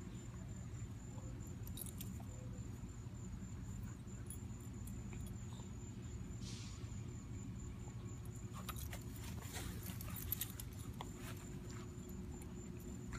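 Springer spaniel puppy mouthing a red pepper in the grass: faint scattered clicks and a jingle of collar tags, mostly in the second half, over a steady low rumble.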